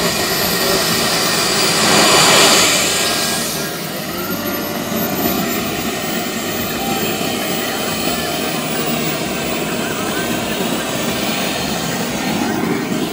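Turbine engine of a radio-controlled model jet running on the ground: a steady rushing roar with a very high whine on top. It swells louder about two seconds in, then settles back to a steady run as the jet taxis.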